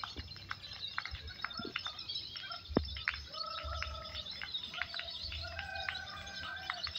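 Many caged lovebirds chirping and chattering at once in a singing contest: a dense run of short sharp chirps, with drawn-out steady notes joining from about three seconds in.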